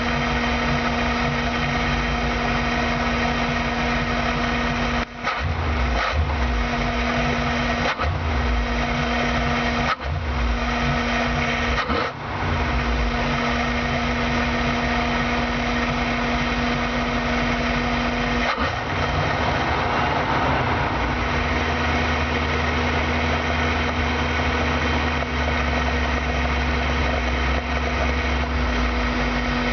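Van engine running to warm up after being flooded, heard from inside the cab through the open engine cover, with the carburetor's air-cleaner lid off. Its steady note dips out for a moment several times in the first half, then changes to a deeper rumble about two-thirds of the way through.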